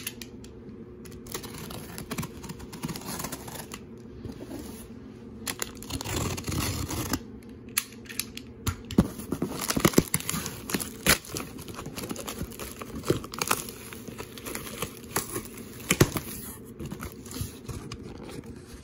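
A corrugated cardboard box being pulled open by hand: packing tape tearing from the flaps, with cardboard scraping, rustling and irregular knocks.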